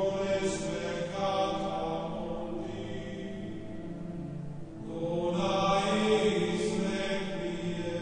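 Background music of slow, sustained chanting voices, swelling in two long held phrases: one at the start and another about five seconds in.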